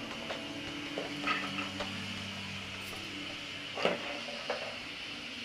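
Soaked chickpeas dropping by hand into hot oil-and-spice masala in a steel pressure cooker, sizzling steadily, with a few short knocks of chickpeas and steel, the loudest about two-thirds of the way in.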